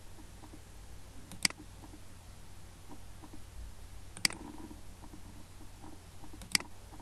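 Three sharp computer-mouse clicks, a few seconds apart, over a faint steady low hum. The clicks open a right-click spelling menu in a slide and pick a correction.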